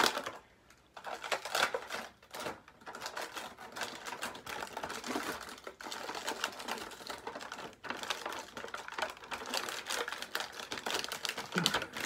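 Clear plastic blister packaging crinkling and crackling in quick, irregular clicks as hands pull an action figure free of its tray.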